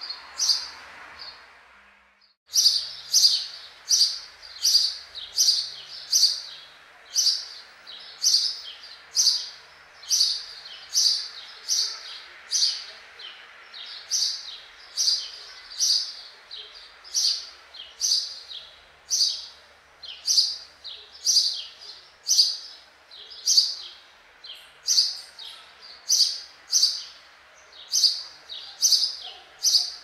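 House sparrows chirping: a steady run of short, sharp cheeps at about two a second, after a brief drop-out around two seconds in.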